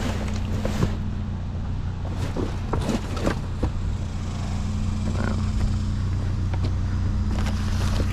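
Pickup truck running as it drives slowly, a steady low engine and road drone with scattered small rattles and clicks.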